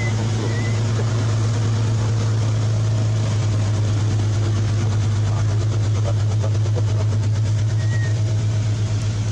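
A loud, steady low engine drone with a fast even pulse, and a few short high chirps about half a second and eight seconds in.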